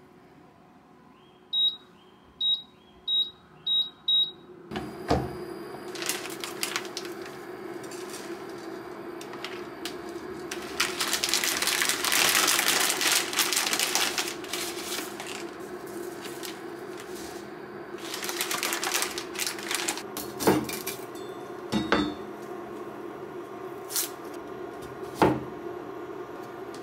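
Induction hob's touch controls beep five times in quick succession as it is switched on, then the hob hums steadily while heating a pan of water, with stretches of louder hissing noise. Near the end come a few sharp knocks of a kitchen knife on a plastic cutting board.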